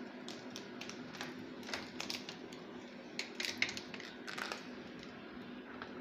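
Scattered light clicks and crinkles from hands handling the plastic-wrapped glass lid of a Haier top-load washing machine as it is lifted open.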